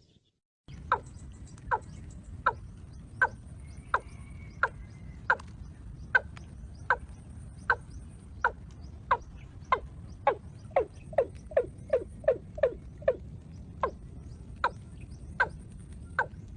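A bird's call: a short, sharp falling note repeated over twenty times, about one every 0.8 s, quickening to nearly three a second around the middle and then slowing again.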